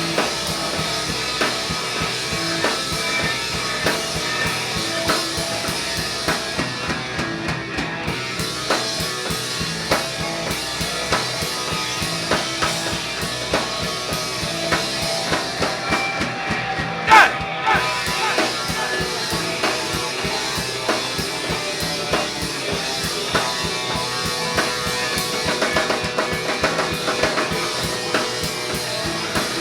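Instrumental rock music: a drum kit with a steady beat under guitar, with one louder crash about seventeen seconds in.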